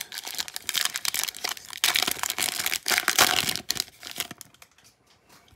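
Foil wrapper of an NBA Hoops trading-card pack being torn open and crinkled: a dense crackling, loudest for the first three and a half seconds, then dying down to faint rustling.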